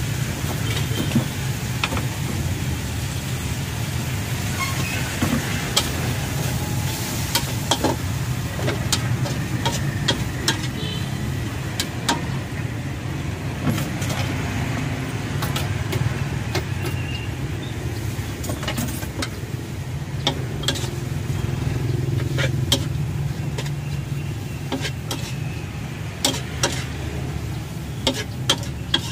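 Metal spatula scraping and clanking against a steel wok, many sharp knocks throughout, as vegetables and instant noodles are stir-fried over a gas flame, with some sizzling and a steady low rumble underneath.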